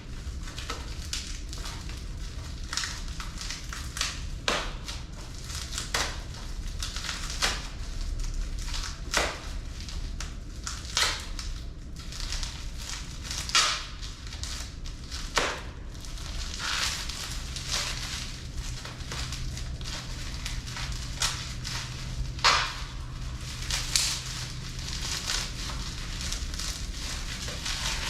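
Packing material being handled and pulled off a bike: irregular crinkling, rustling and crunching, with a sharp crackle every second or two.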